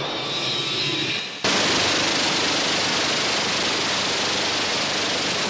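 Su-35S's 30 mm GSh-30-1 single-barrel cannon firing long, rapid bursts whose shots blur into one continuous rattle. A first burst tails off about a second and a half in, and a second burst starts abruptly right after it.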